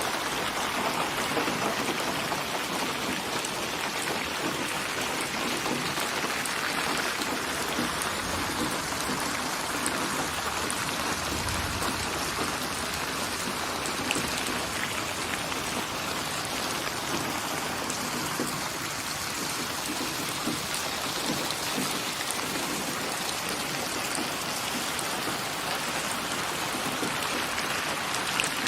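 Steady rain falling, an even patter of drops on a surface with scattered individual drop ticks.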